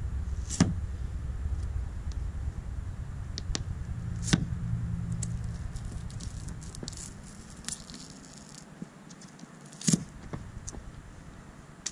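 Sharp clicks and light rattling from braided fishing line being sawed behind a chrome boat emblem to cut through its adhesive. Under it a low engine rumble fades away after about seven seconds.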